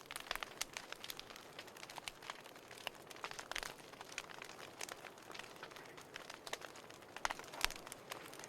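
Fireplace fire crackling: irregular sharp pops and snaps over a soft steady hiss, with clusters of louder pops about three and a half seconds in and again after seven seconds.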